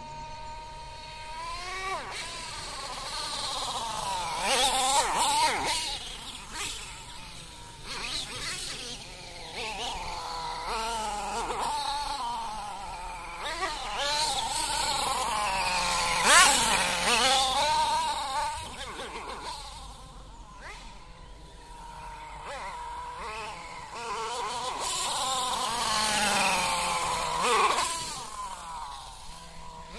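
Nitro engine of an HPI Savage RC monster truck, a new engine being run in, revving up and down as the truck drives back and forth. Its high, buzzing note holds steady at first, then rises and falls again and again, and is loudest about halfway through.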